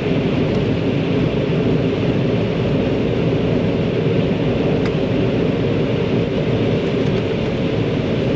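John Deere 9500 combine running steadily while harvesting corn, a loud, even, low-pitched machine noise with a faint steady hum in it.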